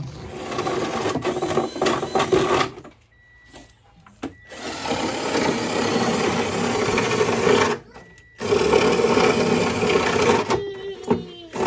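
A handheld power tool running in three long bursts, stopping briefly about three seconds in and again about eight seconds in.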